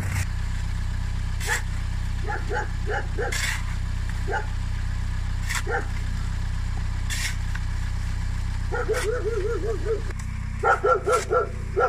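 A dog barking in short, scattered barks, then a quick run of yaps and the loudest barks near the end; the dog is agitated. Under it runs the steady low hum of a car engine idling.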